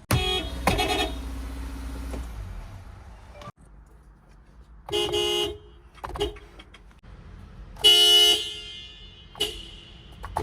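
Subaru car horn honking in about five separate toots, some brief and some held for about half a second, the loudest about eight seconds in. A low rumble runs under the first two seconds.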